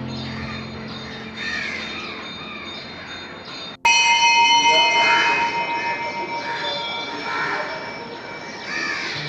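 Birds calling, with crows cawing among short repeated calls; the sound cuts out briefly about four seconds in and comes back louder.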